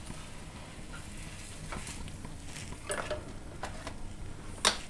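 Silicone spatula scraping under a crisp dosa on a nonstick tawa as the dosa is lifted off, with a faint sizzle from the pan. A few light clicks and knocks, the loudest and sharpest near the end.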